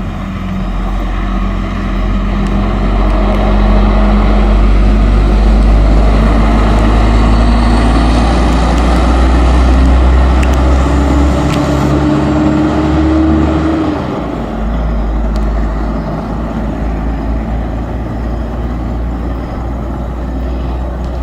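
Mercedes-Benz O-500 RSD coach's six-cylinder turbodiesel running loud under load, its pitch climbing steadily as it pulls. About two-thirds of the way through the pitch and level drop suddenly, as at a gear change or the throttle being lifted, and it runs on lower.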